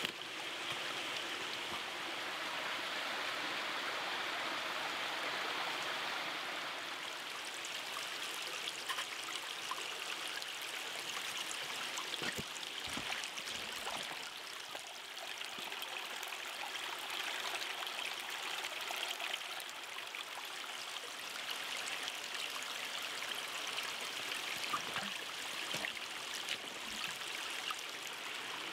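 Pork tomahawk steak sizzling over charcoal in a small folding camp stove: a steady hiss dotted with fine crackles and pops from the fat and coals.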